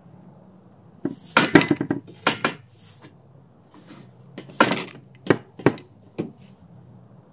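Metal clanking and scraping as a length of steel square tubing is handled and shifted on a metal work table, in two bursts of clatter: one about a second in, another about four and a half seconds in.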